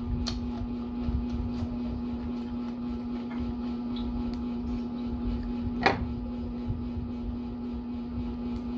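A steady low electrical hum over a low rumble, with scattered small clicks of food being handled and eaten, and one sharper, louder click about six seconds in.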